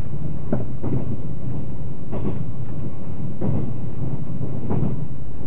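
Interior running noise of a JR 381 series limited express train at speed, heard inside its rear panorama car: a steady low rumble with five short knocks about a second apart.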